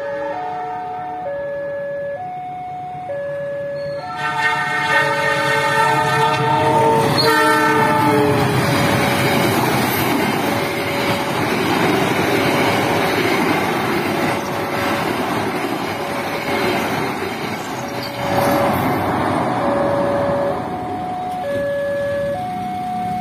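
Level-crossing warning alarm repeating its two-note chime while an express passenger train passes. The locomotive's multi-tone air horn sounds for about four seconds starting about four seconds in and falls slightly in pitch as it ends. The carriages then rush past with wheel-on-rail noise until shortly before the end.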